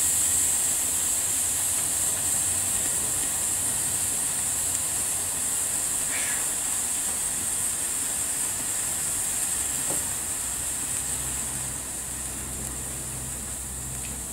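Steady hiss from the burning, overvolted air fryer's insides, slowly easing off. A low hum grows louder about ten seconds in.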